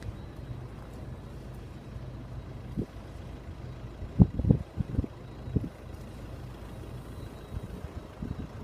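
Wind turbine running with a steady low hum, broken around the middle by a handful of short low thumps of wind buffeting the microphone.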